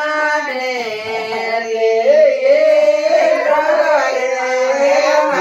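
Group of women singing a Rajasthani ratijaga devotional folk song together, with long drawn-out notes.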